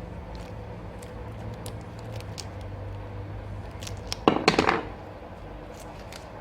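Small tools and parts handled on a workbench: scattered light clicks, then a quick burst of sharp clacks a little over four seconds in, over a steady low hum.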